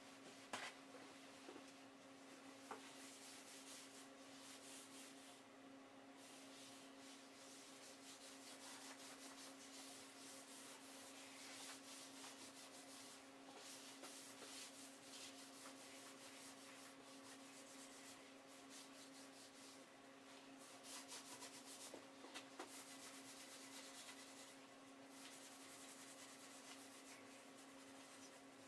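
Faint, uneven rubbing of a paper towel wiping oil into the surface of an oak cutting board, over a steady low hum.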